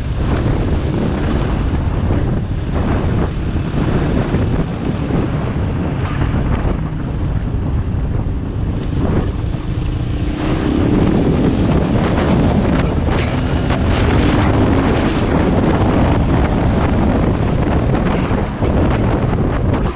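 Heavy wind buffeting on the microphone over a KTM 500 EXC's single-cylinder four-stroke engine running under way, its note rising about ten seconds in.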